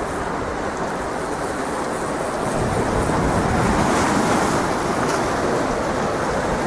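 Steady rushing noise of wind on the microphone and waves on choppy water, growing a little louder about two and a half seconds in.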